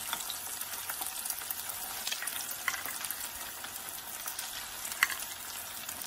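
Chicken keema pakoras deep-frying in oil heated to medium in a wok: a steady crackling sizzle. A couple of short sharp clicks come as a metal spoon turns them, the clearer one about five seconds in.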